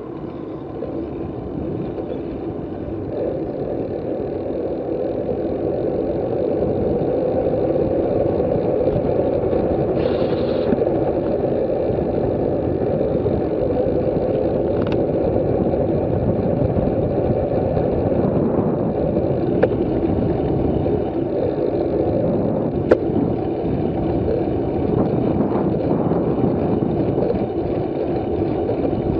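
Wind rushing over a bicycle-mounted camera's microphone with tyre and road noise from riding, building up over the first several seconds as the bike gets up to speed, then holding steady. A few sharp clicks cut through it, the loudest a little past the middle.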